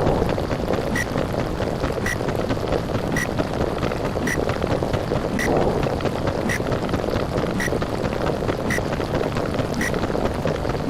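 Underwater ambience sound effect: a continuous muffled, bubbling rush of water, with a short click about once a second.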